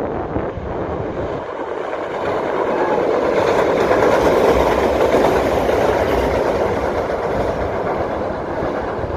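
Electric multiple-unit train crossing a steel girder railway bridge: a rumble of wheels on rails and bridge steel with some clickety-clack. It swells to its loudest about halfway through as the train passes close, then fades as it moves away.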